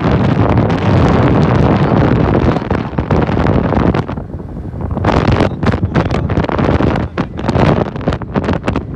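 Strong wind buffeting the microphone: a heavy, low rumble for the first four seconds, easing briefly, then coming in short irregular gusts.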